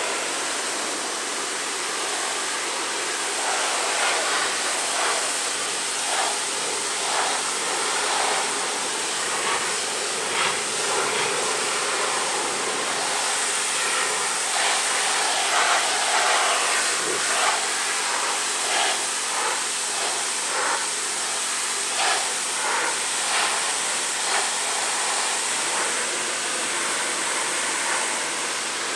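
Pressure washer jet spraying water onto a car's rear body panels, tail lights and bumper: a steady hiss of spray with frequent short, louder splashes as the jet sweeps across the surfaces.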